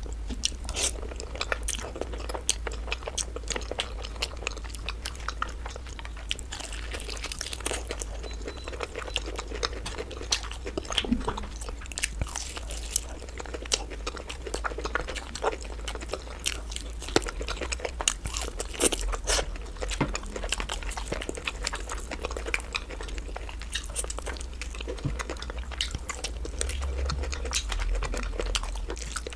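Close-miked chewing and biting of black bean noodles and glazed fried chicken, with frequent sharp mouth clicks and smacks. A steady low hum sits underneath.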